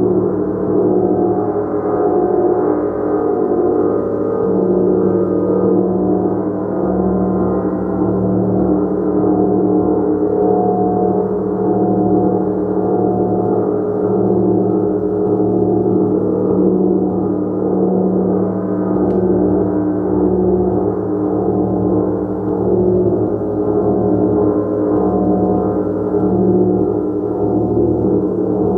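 Gong played continuously: a sustained, dense wash of many overlapping ringing tones that gently swells and ebbs, with no separate strikes standing out.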